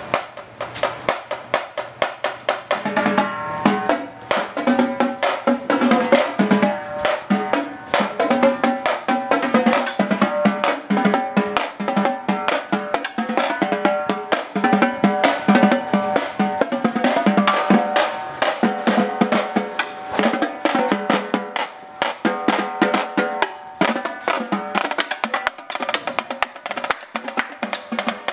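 Marching snare drum and marching tenor drums played together in a fast cadence: dense, rapid sticking with the tuned tenor drum tones sounding over the snare.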